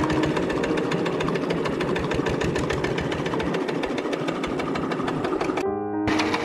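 S301D diesel engine of a homemade tractor running at idle with an even, rapid knocking beat. Near the end it cuts out briefly and then resumes.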